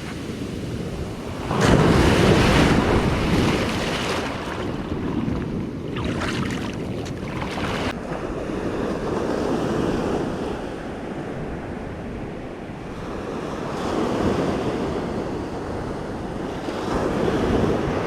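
Ocean surf breaking and washing up a sandy beach, with wind buffeting the microphone. The waves surge loudest about a second and a half in, and again shortly before the end.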